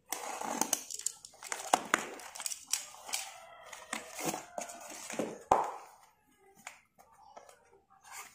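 Brown packing tape being picked at, peeled and torn off a small cardboard parcel by hand, with irregular crinkling and crackling of tape and cardboard and one sharp snap about five and a half seconds in. Quieter handling of a box follows.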